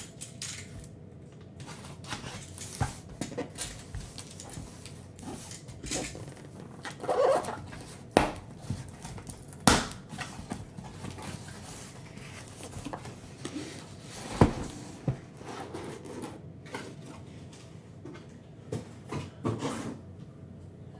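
Cardboard case of card boxes being handled and opened: scattered knocks, scrapes and rustling of cardboard flaps, with a few sharper knocks in the middle.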